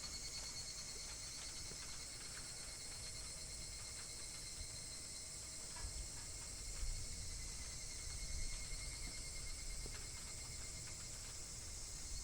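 Insects, crickets by the sound of it, trilling steadily in a high, pulsing chorus, with a few faint knocks about halfway through.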